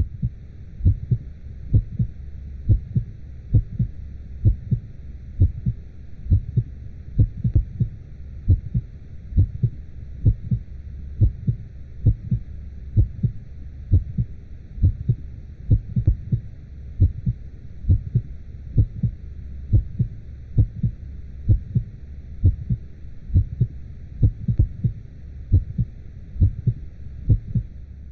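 Womb heartbeat sound: paired lub-dub beats repeating steadily, a little under a second apart, over a continuous low whooshing rumble.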